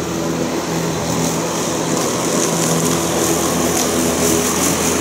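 Worx WG788 36-volt cordless electric lawn mower running in quiet mode as it is pushed across the lawn: a steady motor and blade hum with a few held tones and a high airy hiss.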